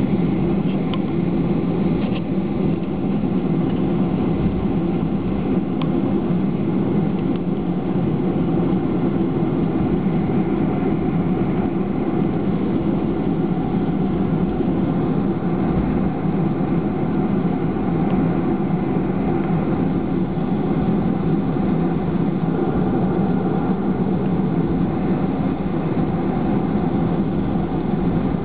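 Cabin noise of a Boeing 737-500 taxiing, heard from a seat over the wing: a steady, low drone of its CFM56 engines and the airframe, with no change in pitch or level.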